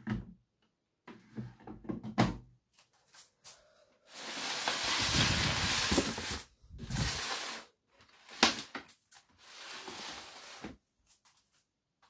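Laundry handling at a front-loading washing machine: clicks and knocks from the plastic detergent drawer, then several stretches of rustling as clothes are handled over a plastic laundry basket, with a sharp click about two-thirds through.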